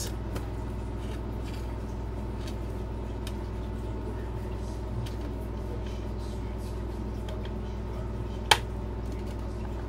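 Handling of a CD digipak: faint ticks and rustles of the cardboard case, then one sharp click about eight and a half seconds in as the disc is popped off its tray hub. A steady low hum runs underneath.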